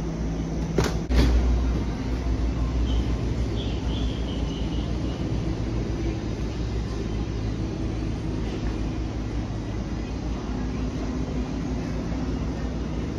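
Steady low mechanical hum of a running engine or machine, with a short loud clatter about a second in.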